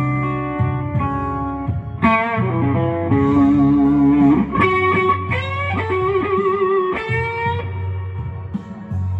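Electric guitar playing a slow blues lead, with string bends and wavering vibrato on held notes, over a steady bass line.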